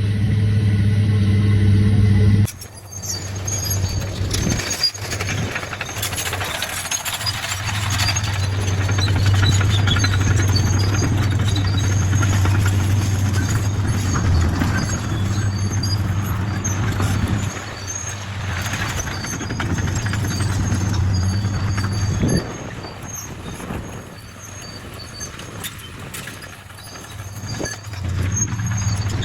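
Bulldozer's diesel engine running steadily under load, with high metallic squealing from the tracks. The sound changes abruptly about two and a half seconds in, as if cut.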